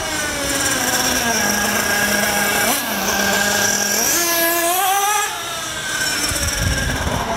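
Nitro RC buggy's small glow-fuel engine revving up and down as the buggy makes passes, its pitch rising and falling with the throttle and holding steady for about a second near the two-second mark. The engine is running hot while its high-speed mixture is being richened.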